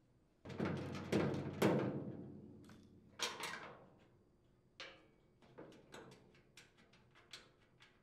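Half-inch socket and wrench unthreading nuts from a chipper shredder's steel impeller housing. A dense run of metallic clicking and clinking starts about half a second in, a shorter burst follows just after three seconds, then scattered light clicks.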